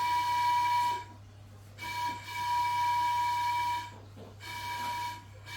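A steam whistle sounding in separate blasts of one steady note with several pitches at once: one blast ending about a second in, a longer one of about two seconds, then a weaker, shorter one near the end.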